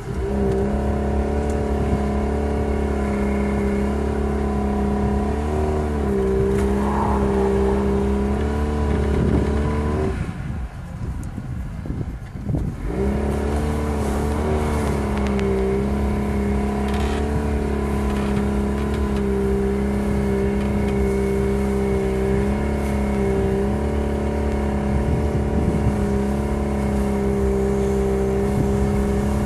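2010 Jeep Patriot's engine held at steady high revs as the Jeep tries to drive through hard-packed snow, with brief wobbles in pitch. About ten seconds in the revs drop away for a couple of seconds, then come straight back up and hold again.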